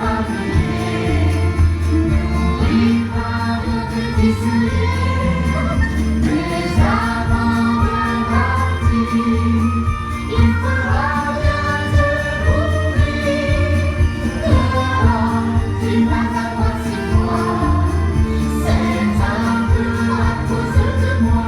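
Christmas song with sleigh bells jingling and a sung lead melody with backing voices, played over a show sound system.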